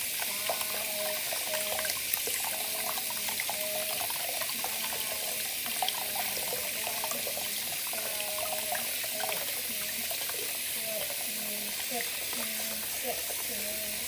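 Tap water running steadily into a sink as hands are washed under the stream, with a faint voice underneath.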